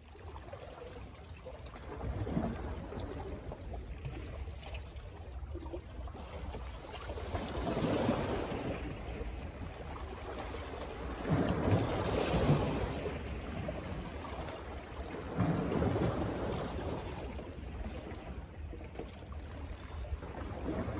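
Small sea waves washing against shore rocks in surges every few seconds, over a steady low rumble of wind on the microphone.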